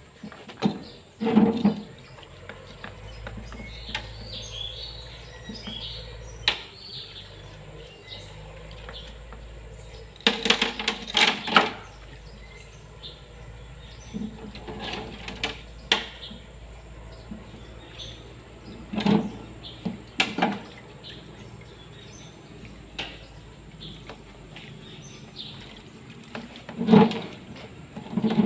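Washing fluid splashing and sloshing in a metal tray as tractor front-hub parts are scrubbed with a brush, in several short bursts with small knocks of the parts against the tray. Faint bird chirps.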